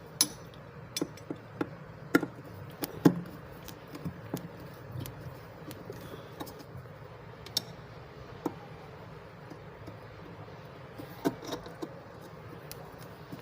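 Scattered small clicks and taps of a screwdriver, screws and a metal magnetic cabinet catch being handled and screwed into place, a few sharper knocks in the first three seconds and sparser clicks after.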